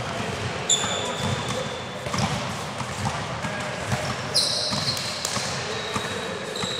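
Futsal ball being kicked and bouncing on an indoor court, with irregular thuds. Sneakers squeak sharply on the floor about a second in and again around four seconds in, all echoing in a large sports hall.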